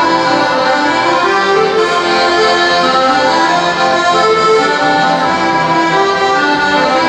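Accordion music playing a continuous tune at a steady level.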